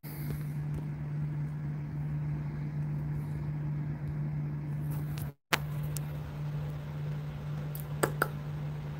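A steady low hum with a background hiss. It cuts out for a moment a little past five seconds and resumes with a click, and two short chirps come about eight seconds in.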